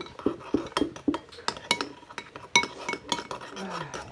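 Small spoons clinking and knocking against glass jars as glue and colouring are stirred together for slime: a quick, irregular run of light knocks, some leaving a short ringing note.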